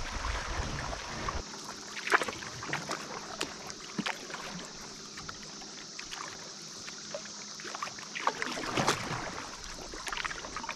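Paddling a canoe: water splashing and dripping, with scattered sharp knocks of the paddle against the hull over a steady hiss.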